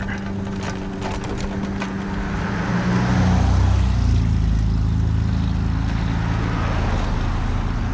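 Electric mobility scooter running with a steady motor hum as it rolls off the road onto grass and a driveway, with a few clicks and rattles over the bumps early on. A low rumble swells about three seconds in.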